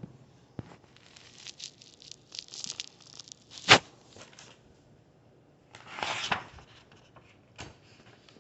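Paper rustling and crinkling from a picture book's pages being handled and turned, with a sharp click a little before the middle and a second rustle about two-thirds of the way through.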